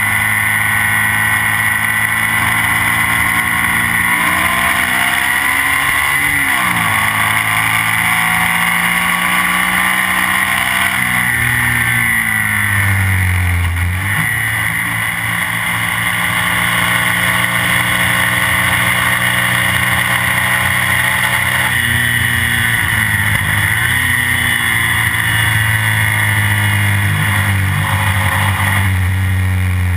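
Classic racing sidecar outfit's engine running hard on board, its pitch dropping as the throttle comes off and it changes down about a fifth, half and three quarters of the way through, then climbing again as it accelerates out of the corners.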